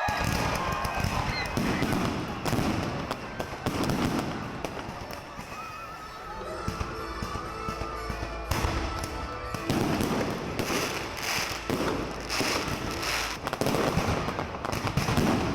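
Fireworks going off: a long run of sharp bangs and crackles, many in quick clusters, with music in the background.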